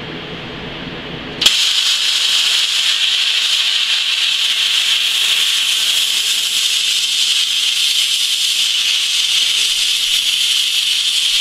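40-amp plasma cutter arc starting abruptly about a second and a half in, then a loud, steady hiss as the torch cuts a bevel through steel plate. Before it starts, a lower, quieter steady hum.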